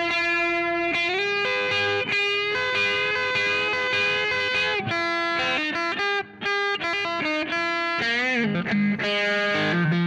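Electric guitar demo on the bridge pickup in its "voice 2" setting: a long held note, then a run of single notes, with a short break about six seconds in and a bent note near the end.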